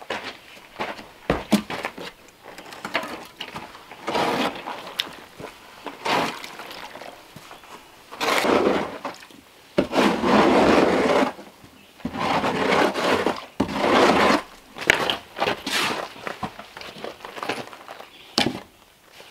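Hand tools working wet mortar in a plastic tub: repeated gritty scrapes of a shovel and hoe through the mix, about a second each, with sharp knocks and clicks between them. The longest scrapes come in the middle.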